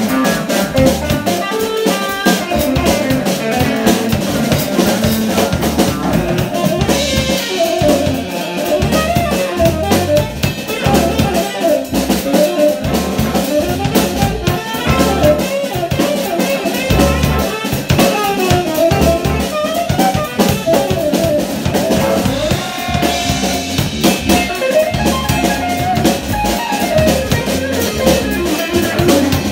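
Live band playing: drum kit keeping a busy beat under electric bass, hollow-body electric guitar and saxophone.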